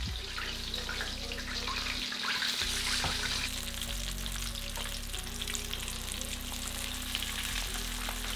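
Whole floured tilapia (mojarra) frying in hot oil in a stainless steel skillet: steady sizzling with fine crackling.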